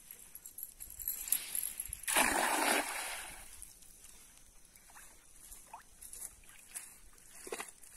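A cast net thrown into a pond: a rising rush as it flies, then a loud splash about two seconds in as the spread net lands on the water, fading over the next second. Afterwards only a few faint clicks as the hand line is held and gathered.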